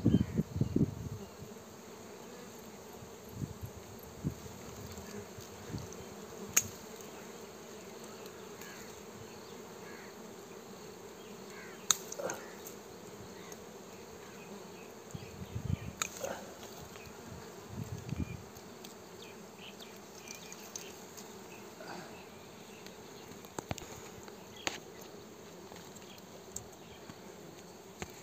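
Honeybees buzzing steadily around their wild comb in a bush, with scattered sharp snaps and rustles of twigs and leaves as branches are pushed aside.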